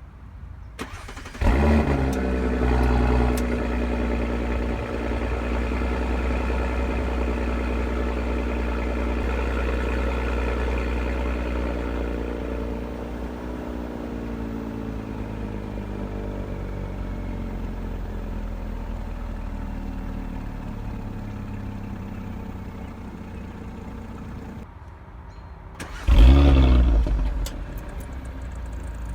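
Audi SQ5's 3.0-litre twin-turbo V6 on its stock exhaust starting from cold: it catches about a second and a half in with a loud flare, then holds a fast idle that slowly settles lower. Near the end, after a short break, a second loud flare rises and drops back to idle.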